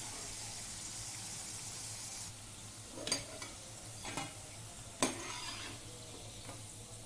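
Rice-and-chickpea-flour chakli frying in hot oil in a nonstick pan: a steady sizzle, with a few light knocks about three, four and five seconds in as the pieces are turned over.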